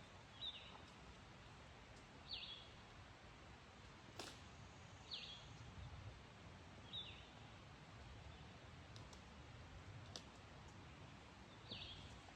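A bird calling a short, high, downward-slurred chirp five times, a few seconds apart, over faint background hiss, with a single sharp click about four seconds in.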